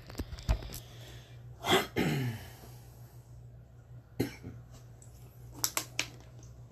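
A person coughs once, about two seconds in, the loudest sound here. Several short sharp clicks and taps come before and after it, over a steady low hum.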